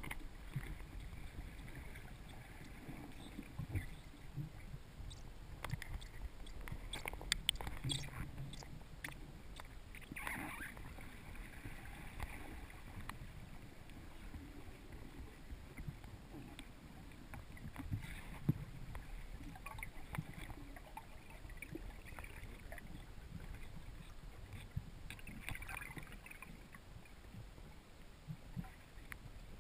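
Muffled underwater ambience heard through a submerged camera's waterproof housing: a low steady rumble with scattered faint clicks and a few brief hissing swells.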